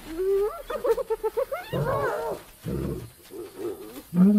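Hyenas at a kill calling in quick, high chattering giggles and rising and falling whoops, then a male lion's roar starting loudly about four seconds in.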